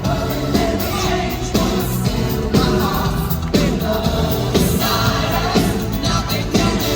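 Live pop song played by a band over a venue PA, with a male lead vocal singing over a steady drum beat of about one strong hit a second.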